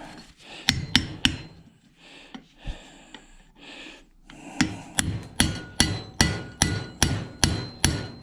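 Hammer blows on metal while a washing machine motor is being knocked apart: three quick strikes about a second in, a pause with some scraping, then a steady run of about ten blows, two to three a second, each with a short metallic ring.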